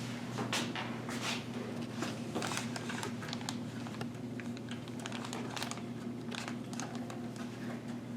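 Power supply being fastened into a PC case with thumb screws: a scatter of small irregular clicks, ticks and scrapes of screws and metal parts, over a low steady hum.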